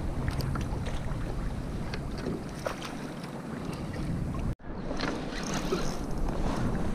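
Wind buffeting the microphone over small waves lapping around a kayak, with faint scattered light clicks. The sound cuts out for an instant about four and a half seconds in.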